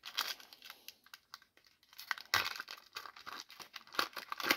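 Foil wrapper of a trading card pack being torn open and crinkled by hand, in several crackling bursts with a short lull about a second in.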